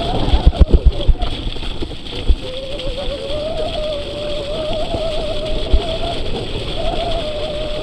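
Mountain bike ridden over a rough trail: knocks and rattles of the bike over bumps in the first second or so, with rushing wind noise, then a wavering mid-pitched whine held for about five seconds.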